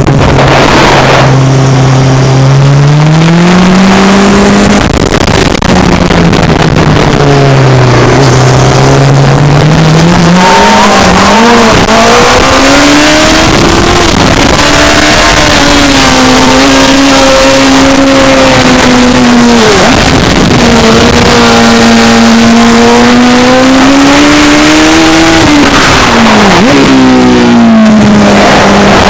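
Onboard sound of a racing sidecar's engine run hard around a circuit. Its pitch climbs under acceleration and drops back sharply several times at gear changes and into bends, over a constant loud rush.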